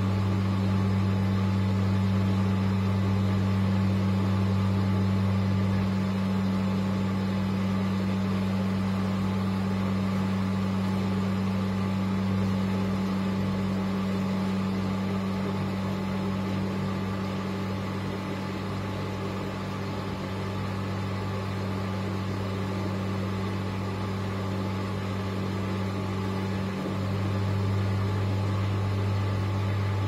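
Early-1970s V-Zug Adora 4 washing machine tumbling wet laundry in its drum during a wash: a steady motor hum over a rushing noise. The sound eases a little midway and grows louder again a few seconds before the end.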